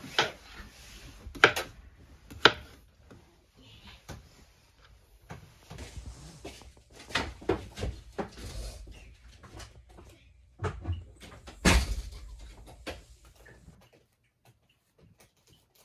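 Scattered knocks and thumps of things being handled and moved, with a few sharp knocks in the first three seconds and the loudest thump about twelve seconds in.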